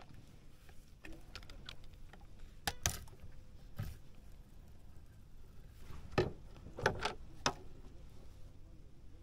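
A handful of sharp knocks and taps, as from gear being handled aboard a small fishing boat, over a low steady rumble. Two come close together about three seconds in, and the loudest cluster of three comes between six and seven and a half seconds.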